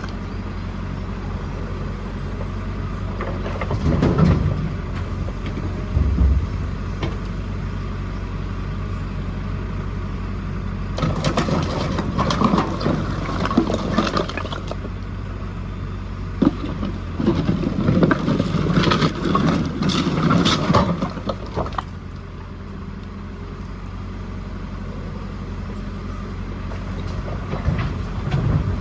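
JCB 4CX backhoe loader's diesel engine running steadily. Three times it is joined by bursts of clattering and scraping as rubble is worked with the bucket.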